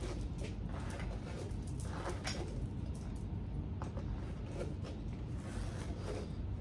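Soft rustling of a hairbrush and hands through long mannequin hair as it is gathered into a ponytail: a few faint brush strokes over low room noise.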